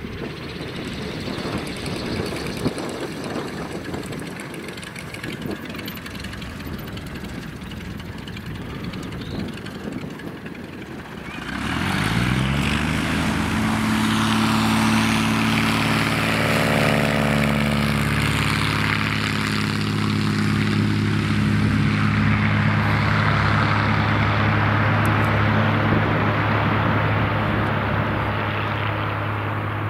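Cessna O-1 Bird Dog's six-cylinder Continental O-470 engine and propeller running at low power on the ground. About twelve seconds in the engine is opened up to full throttle, its pitch rising over a couple of seconds. It then holds a steady, loud full-power tone through the takeoff run and climb-out.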